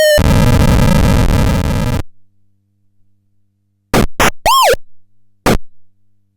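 Lineartec ZX-800 electronic sound-effect box: a harsh, noisy buzz for about two seconds that cuts off suddenly, then after a pause a few short electronic blips, one of them a quick chirp that rises and falls in pitch.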